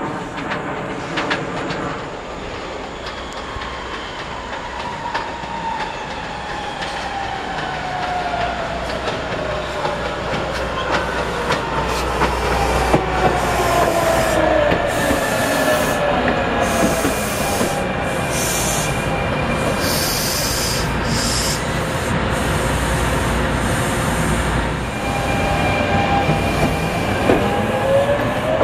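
SEPTA ABB N5 electric railcar passing: its motor whine falls steadily in pitch as it slows, with wheel squeal and wheel clatter on the curved track. Near the end a whine rises again as it speeds up.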